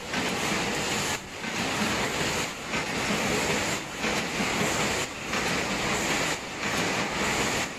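Kraft paper bowl lid making machine (ZGJ-60) running: a steady mechanical clatter that dips briefly about every 1.3 seconds in a regular rhythm.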